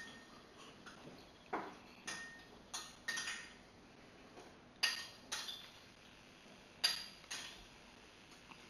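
About nine sharp clinks and knocks at irregular intervals, a few with a brief ringing tone, each dying away quickly over a quiet room background.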